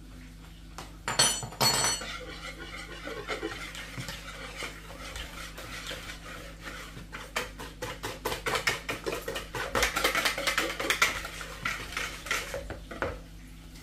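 A wire whisk beating eggs and flour into a batter in a plastic bowl: a rapid run of clicks and scrapes that gets busier and louder in the second half. Two sharp metallic clinks about a second in.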